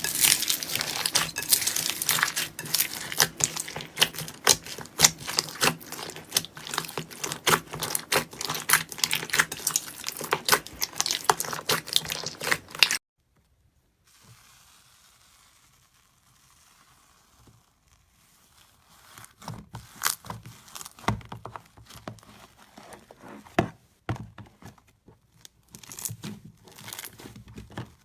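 Slime being squeezed and pressed, giving dense crackling and popping clicks. These cut off suddenly about 13 seconds in, and after several seconds of near silence sparser crackles and pops return.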